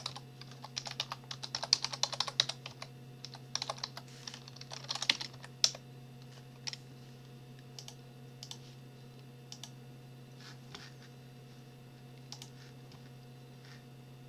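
Typing on a computer keyboard: a quick run of keystrokes for about the first six seconds, then only a few scattered clicks, over a steady low hum.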